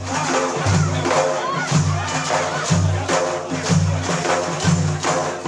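Music with a steady frame-drum and tambourine beat, one heavy low beat about every second with jingles over it.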